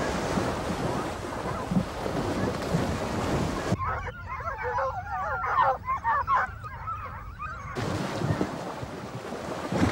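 Horses splashing through a stream, a loud rush of water noise. About four seconds in it changes to a pack of foxhounds baying, many overlapping wavering cries. Near the end the splashing of horses wading water returns.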